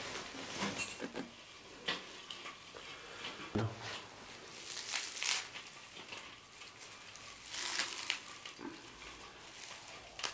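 Braided strings of dried leafy greens rustling and crackling as they are lifted from a woven sack and pulled apart over a steel platter, in irregular short crisp bursts.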